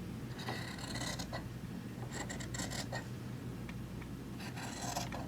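Scissors cutting through fabric, a dry rasping snip-and-slide in three stretches of cutting as the pieces are trimmed.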